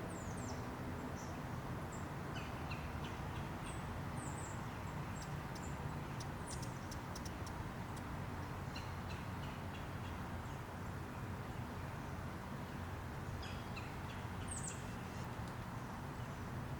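Hummingbirds giving short, high, thin chips in small scattered clusters, a few at a time, over a steady low background rush.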